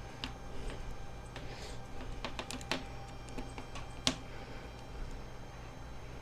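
Small plastic clicks and taps as a part of an LG V40 phone is pressed and snapped back into place, with one sharper snap about four seconds in.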